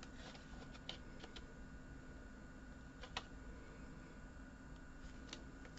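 Quiet room tone with a few faint, scattered clicks and taps; the clearest comes a little after three seconds in.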